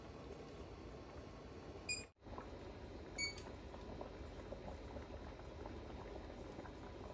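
Pot of spaghetti water boiling faintly on an induction hob. Two short, high electronic beeps about a second and a half apart, as a kitchen timer is set for the pasta.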